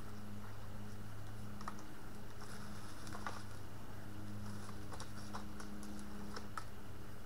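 Faint, irregular crackling and clicking of dry twigs and branches being handled in a brush pile, over a steady low hum.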